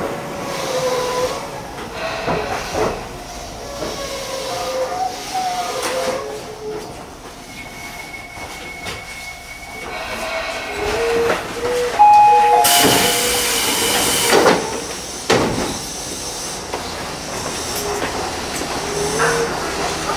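Electric commuter train slowing to a stop at a platform, with a faint whine from its electric drive over the running noise. About twelve seconds in comes a loud hiss of released air lasting a couple of seconds, then a single knock.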